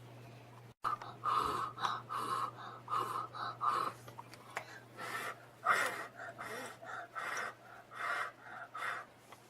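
A person's quick, breathy panting or gasping, about two puffs a second.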